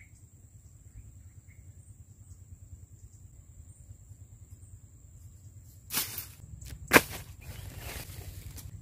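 Handling of a plastic blister pack holding a new brush-cutter saw blade: a short rustle about six seconds in, a single sharp crack a second later, then crinkling. Under it run a low steady rumble and a thin high steady insect drone.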